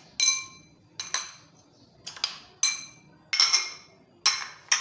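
A metal spoon clinking sharply against the steel cup of an electric spice grinder and a ceramic bowl while ground spice is scooped and tapped out, about seven irregular strikes with a brief ringing after each.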